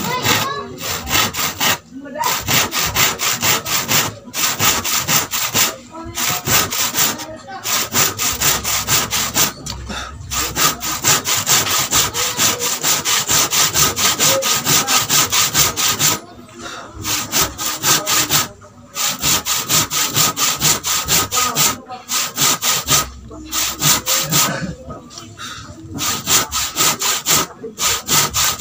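Handsaw cutting through a wooden plank in quick back-and-forth strokes, with brief pauses every few seconds.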